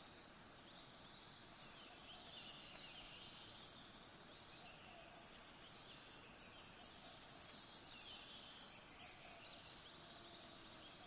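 Faint outdoor ambience: a steady hiss with distant birds chirping and twittering throughout.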